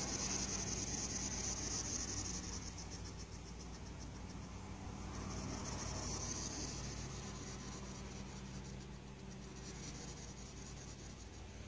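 Soft scratchy rustling that swells and fades as a cat paws at a hedgehog on a towel, over a steady low hum.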